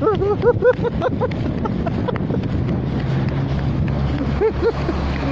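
Wind and a steady low rumble of movement along a street. In the first second or so, and again briefly near the end, a voice gives a quick string of short high-pitched yelps.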